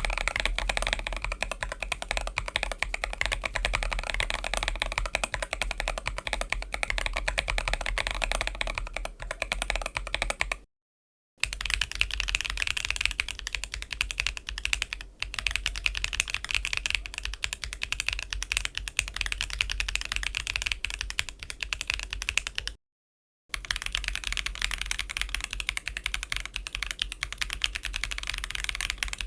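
Typing on a mechanical keyboard fitted with HMX Puppy tactile switches: a fast, continuous run of key clacks in three stretches, each cut off by a brief silence about eleven and twenty-three seconds in. The later stretches sound brighter than the first.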